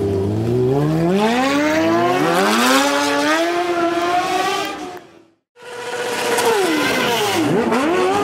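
Stunt sport motorcycle's engine revving, its pitch climbing steadily for about four seconds before the sound cuts out abruptly for half a second. It then comes back revving high, with a sharp drop in revs and a quick climb back near the end.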